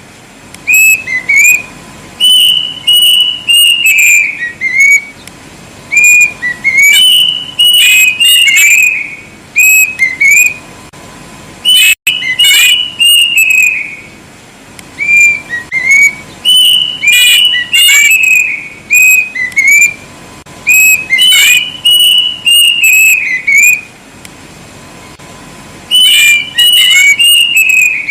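Plaintive cuckoo (burung kedasih) singing loud whistled phrases: quick runs of short notes that rise and fall, in bouts of one to three seconds with short pauses between, repeated throughout. A faint steady tone runs underneath.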